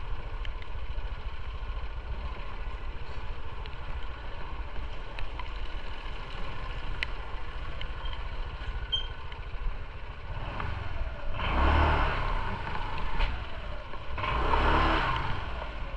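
Motorcycle engine running at low speed with a steady low rumble, swelling louder twice in the last third.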